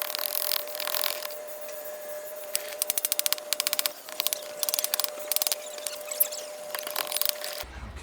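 A hand carving tool cutting and scraping green oak in short bursts of strokes, with a fast, even run of strokes a few seconds in, over a faint steady hum.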